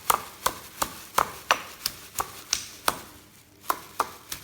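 Pestle pounding chillies in a mortar: sharp, regular knocks about three a second, with a short pause about three seconds in.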